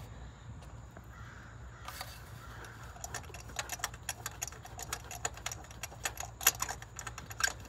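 Faint, irregular metallic clicks and taps from a spark plug and its socket being turned in by hand. They are sparse at first and come thick and fast from about three seconds in.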